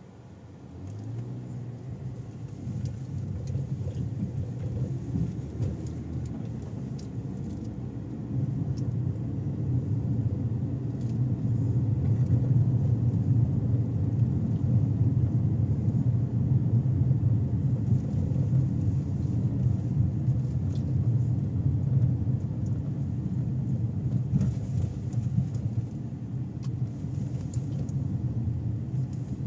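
Car interior rumble of the engine and tyres as the car pulls away and drives on, growing louder about a second in and again a few seconds later as it picks up speed.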